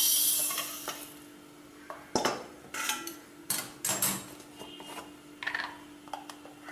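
Kitchen utensils and containers knocked and clinked off to the side, about six sharp separate knocks, with a short hiss at the start and a steady low hum underneath.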